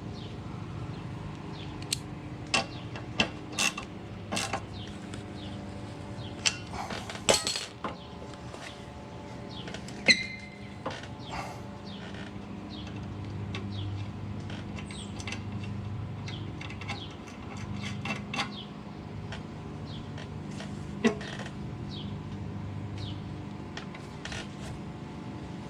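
Scattered metallic clicks and clinks of hand tools working on a motorcycle's front drum brake and fork, over a steady low hum. One sharp ringing clink about ten seconds in is the loudest.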